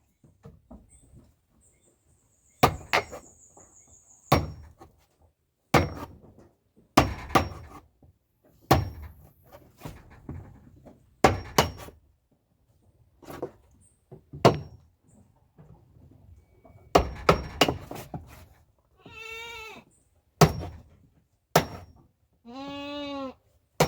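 Hammer blows on a chisel cutting into the wooden boards of a goat pen floor to widen the gaps: sharp, irregular strikes, often two or three in quick succession. A goat bleats twice near the end.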